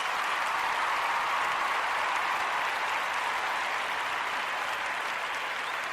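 Steady applause of many clapping hands, easing slightly toward the end.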